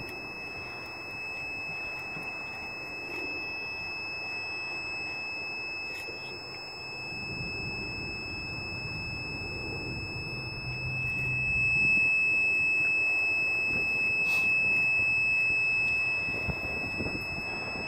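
Continuous high-pitched electronic tone, held steady, from a laser drill-alignment guide pressed against a brick wall. A low rumble swells up and fades through the middle.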